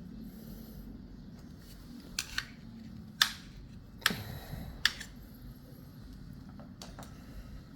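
A handful of sharp metallic clinks and clanks, spaced irregularly, like tools and small metal parts being handled and knocked together. The loudest come a little after three and four seconds in.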